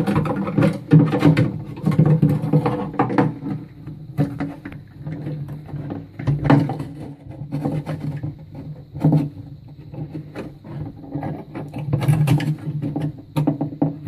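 Plastic parts of a concealed toilet cistern's fill valve knocking, clicking and scraping as the valve is fitted back in and its threaded body is screwed up by hand. The clicks come irregularly all through, with a louder cluster near the end.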